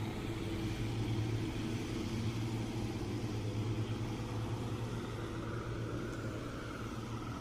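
Twin Mercury outboard motors on a small passenger boat running steadily as it pulls away from the pier, a low even hum with a higher whine coming in about two-thirds of the way through.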